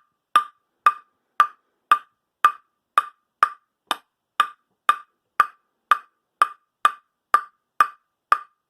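Table tennis ball bounced steadily on a Nittaku Tornado King 5-ply blade: short hollow taps at an even pace of about two a second.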